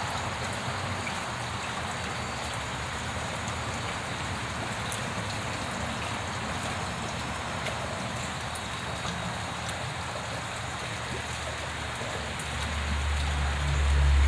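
Steady patter and splash of water on a pond surface, with faint scattered ticks. A low rumble swells near the end.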